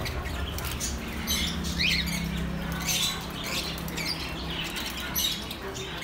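Many caged birds chirping and squawking, short high calls about once a second, with a low steady hum underneath through the middle.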